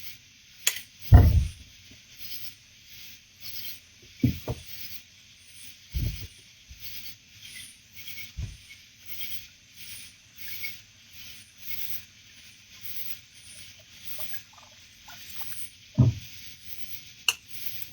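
Night insects calling in a steady, pulsing high chorus, with a few dull thumps and knocks from the kayak and fishing gear being handled.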